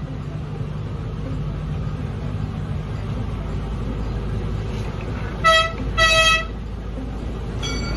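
Miniature train's horn sounding two toots, a short one and then a longer one, over the steady low rumble of the train running as it rolls out of its tunnel.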